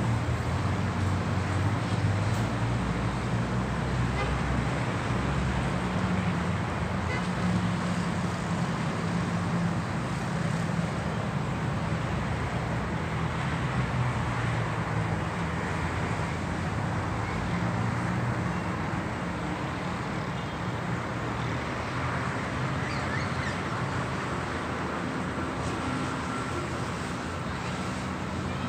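Road traffic on a city avenue: a steady wash of tyre and engine noise with a low engine hum from vehicles passing, a little louder in the first half and easing slightly later.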